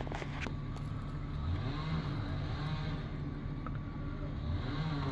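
An engine running steadily, its pitch wavering a little up and down, with a few sharp clicks in the first half-second.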